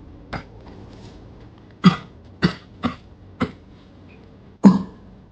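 A person coughing in a fit: about six short coughs at uneven intervals, the loudest one near the end.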